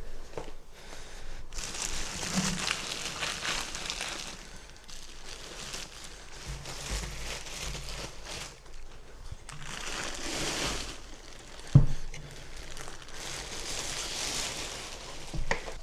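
Packaging crinkling and rustling in waves as it is handled and pulled off, with one sharp knock about twelve seconds in.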